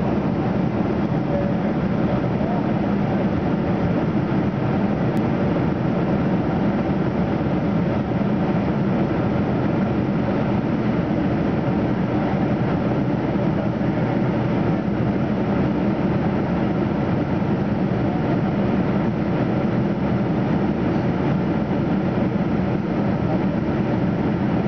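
Steady cabin noise of a Boeing 747-400 in flight, heard from a window seat over the wing: the rush of air along the fuselage blended with the hum of its General Electric CF6-80C2 turbofan engines. It holds one even level and pitch throughout.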